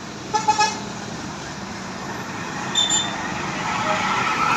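A vehicle horn gives three quick toots about half a second in, over running traffic with a steady engine hum. A short high-pitched beep follows near the middle, and a vehicle grows louder toward the end as it comes closer.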